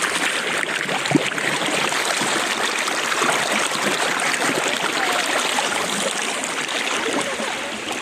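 River water flowing steadily, the river swollen after rain, with one short knock about a second in.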